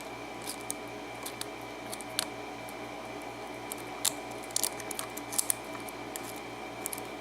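Small, irregular clicks and scrapes of a lock pick working the pin stacks of an Abus 83/45 six-pin padlock cylinder, in single-pin picking, over a steady low electrical hum.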